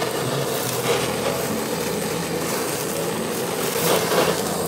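Handheld kitchen blowtorch burning with a steady hiss as its flame sears the tops of white-fish nigiri sushi (aburi).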